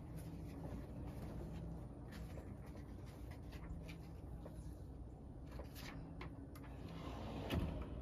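Faint handling sounds of a T-shirt and a sheet of cardboard being arranged on a heat press platen: light rustles and clicks over a low steady hum, with a louder rustle near the end.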